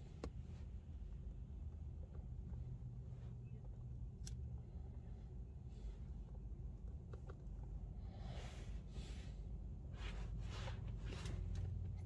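Quiet room with a steady low hum, a few faint scattered clicks, and light rustling and tapping in the last few seconds: hands working the buttons and touchscreen of an MPC Live II sampler.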